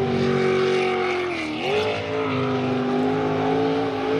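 Racing jet sprint boat's V8 engine running hard at high revs. Its note dips briefly and picks up again about a second and a half in.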